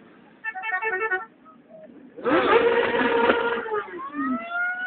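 Motorcycles passing in a parade: a short choppy burst of honking about half a second in, then a loud steady horn blast for about a second and a half, followed by a motorcycle engine revving up and easing off as it passes close.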